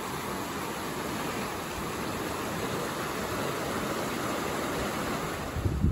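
Ocean surf rushing and foaming over lava boulders along a rocky shoreline, a steady, even rush of water. Near the end, wind begins buffeting the microphone with low rumbles.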